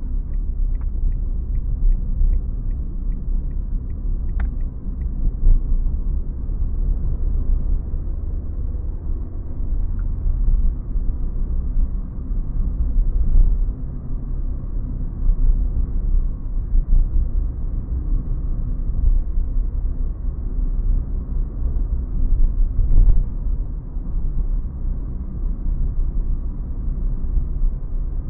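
Steady low rumble of a car's engine and tyres heard from inside the cabin while driving. For the first four or so seconds the turn indicator ticks evenly, ending with one sharper click.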